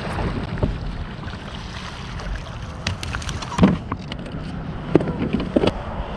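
Wind buffeting the microphone as a steady low rumble, with a few sharp knocks and clicks; the loudest knock comes about three and a half seconds in.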